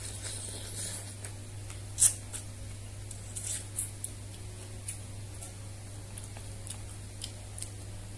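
A person eating noodle soup: wet slurps and mouth sounds as noodles and shrimp are sucked in, with small clicks of chopsticks and spoon and one sharp click about two seconds in, over a steady low hum.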